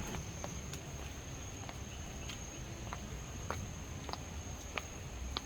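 Steady high-pitched insect drone, one unbroken tone, with scattered faint clicks at irregular spacing.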